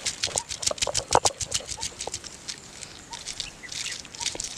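Cylindrical stone roller pounding and crushing garlic cloves on a flat grinding-stone slab. Rapid sharp knocks come about six to eight a second for the first two seconds, then slower and more spread out.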